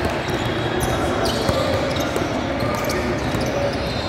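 Basketball game in a gym: a ball bouncing on the court, with short sharp knocks over a steady din of voices and court noise.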